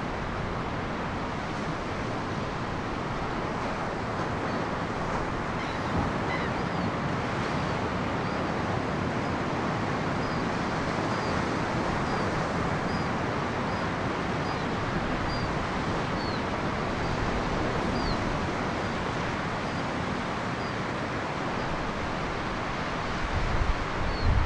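Ocean surf breaking and washing steadily onto the beach and rock shelf. From about five seconds in, a bird gives short high chirps about once a second. Wind buffets the microphone near the end.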